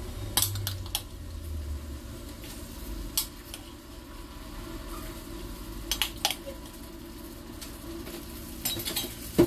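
Chopped roasted eggplant being stirred into a flour-and-butter roux in a frying pan with a silicone spatula, the mixture sizzling steadily. A few sharp clicks come from the spatula knocking against the pan.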